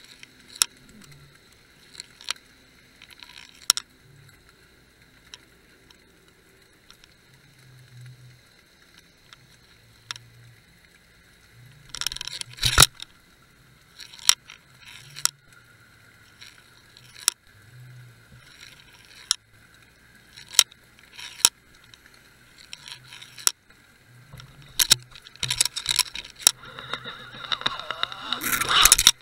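Underwater sound of a jigged bucktail fishing rig picked up by a camera mounted on the line: scattered sharp clicks and knocks over a faint steady high whine, with rattling bursts about twelve seconds in and again through the last few seconds.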